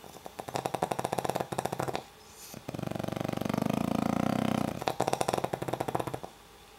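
A pug snoring in its sleep. First comes a fluttering snore of about a second and a half, then a smoother, steadier snore of about two seconds, then another fluttering snore.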